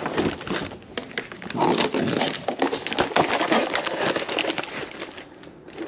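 Rustling, scraping and clicking as boxed fireworks and their cardboard and plastic packaging are handled and moved, dying down near the end.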